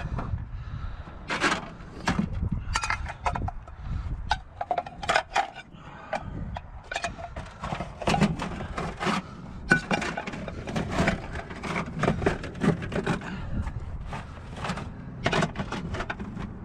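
Irregular clattering and clinking of hard objects knocking together, many quick sharp knocks over a low rumble.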